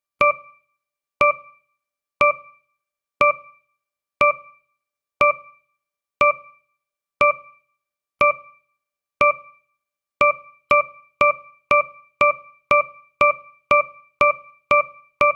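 Countdown timer tick sound effect: a short, bright electronic beep-tick repeating once a second, which speeds up to twice a second about ten seconds in as the timer's final seconds approach.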